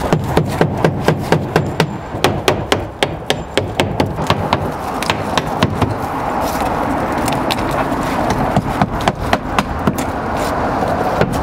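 Claw hammer driving 2-inch galvanized ring-shank nails through an Owens Corning InFlow roof intake vent into the deck: quick runs of sharp strikes, about four a second, with short pauses between nails.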